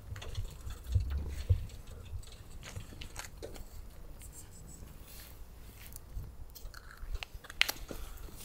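Grey stray cat purring while being petted: a steady low rumble with scattered soft clicks and rustles of a hand stroking its fur, one sharper click near the end.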